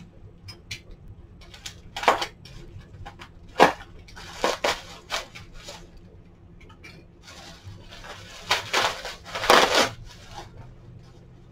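Bubble wrap crinkling and rustling in irregular bursts as a wrapped package is cut open and a paper-wrapped piece is pulled out, loudest near the end.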